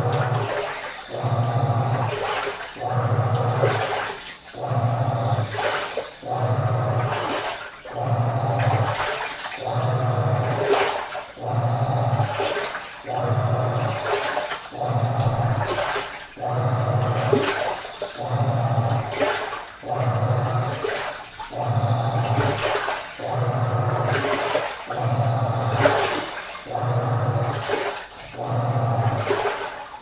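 AQUA AQW-GS70H top-loading washing machine in its wash cycle: the pulsator motor hums in bursts of about a second and a half, one about every two seconds, as the pulsator churns the water and laundry, with steady sloshing and swishing in the drum.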